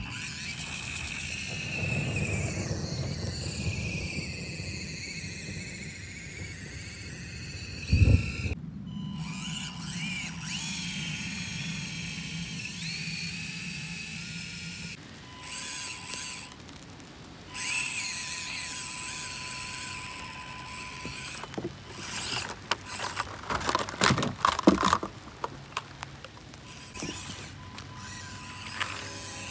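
Axial SCX24 micro RC crawler's small electric motor and gearbox whining as it drives, the pitch rising and falling with the throttle. There is a loud knock about eight seconds in and a run of clatters near the end.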